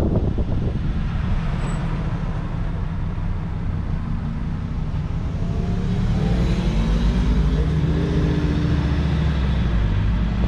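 A motorhome driving along, its engine and road noise a steady low-pitched drone.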